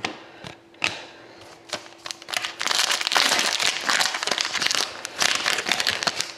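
Trading card pack wrapper crinkling as it is handled, with a few light clicks and taps first, then a dense stretch of crinkling for the last few seconds.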